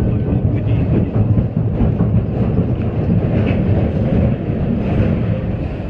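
Big Thunder Mountain mine-train roller coaster running along its track, heard from a seat on the train: a steady low rumble with rattling wheel clatter.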